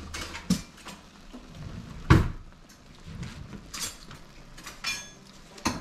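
Kitchenware knocking and clinking a handful of times, the loudest knock about two seconds in and one with a brief metallic ring near the end, over the steady bubbling of water at a rolling boil in a steel pot.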